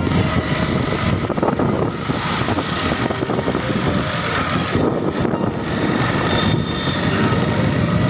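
Motorcycle ride: steady wind rumble on the microphone mixed with engine and road noise.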